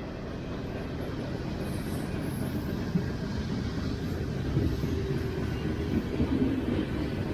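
Heavy freight train rolling slowly past: a continuous low rumble of the cars on the rails that grows gradually louder, with occasional sharp clacks.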